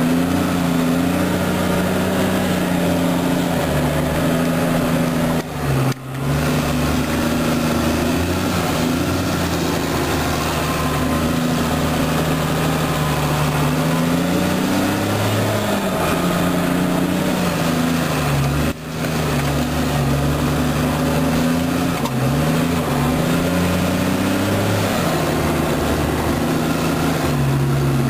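Farm tractor groomer's engine running steadily under load while pulling a trail-grooming drag, heard from inside the cab. Its pitch rises and falls a few times.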